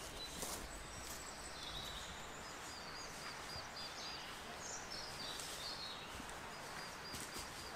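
Wild birds singing and calling, including a quick run of about six short, repeated high notes a few seconds in, over a faint, even outdoor background.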